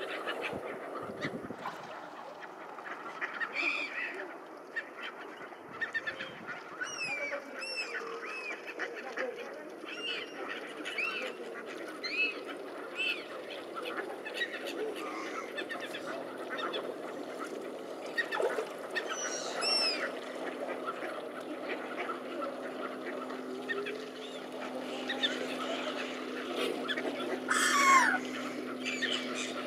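A large mixed flock of gulls and ducks calling on a river: many short overlapping calls, with one loud close call falling in pitch near the end.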